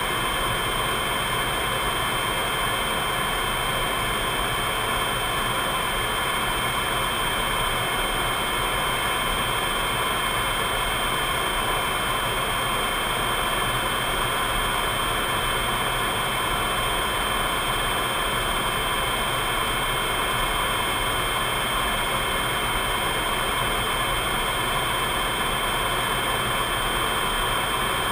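Steady jet cockpit noise heard from inside the canopy: engine and rushing air as an even roar, with a few constant high whines running through it.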